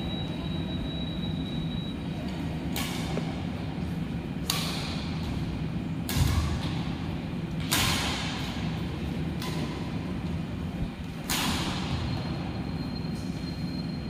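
Badminton rackets striking a shuttlecock in a rally: six sharp hits about every one and a half to two seconds, each ringing briefly in the hall, over a steady low rumble.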